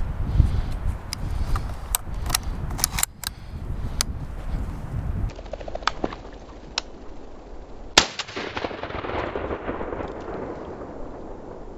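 Shotgun fire: sharp cracks, the loudest about eight seconds in and followed by a brief noisy tail, among lighter clicks and rustling.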